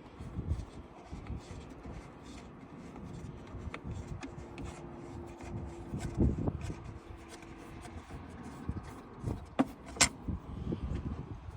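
Hand tools and loosened screws being handled under a car: scattered light clicks and knocks, with a couple of sharper clicks near the end.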